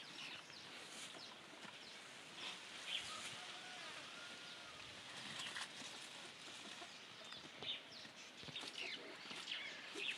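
Faint farmyard ambience: chickens clucking, with small birds chirping on and off, and a few light knocks.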